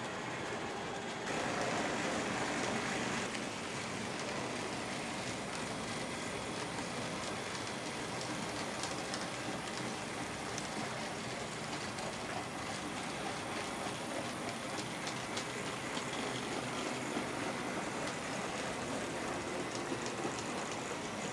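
Several OO gauge model trains running on a layout together: a steady rattle of small wheels on track, with frequent small clicks over the rail joints. It is louder for about two seconds shortly after the start.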